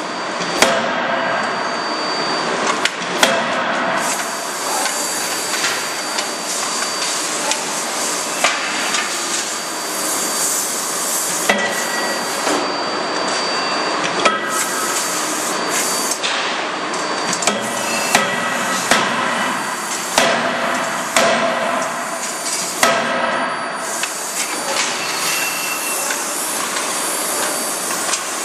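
CNC die forging hammer striking red-hot steel in its dies: sharp metal blows come at irregular intervals over a loud, steady industrial din.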